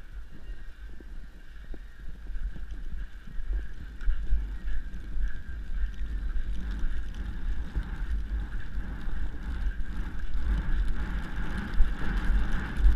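Wind buffeting the microphone of a helmet-mounted camera on a cantering horse, heard as a steady low rumble. It gets louder about four seconds in.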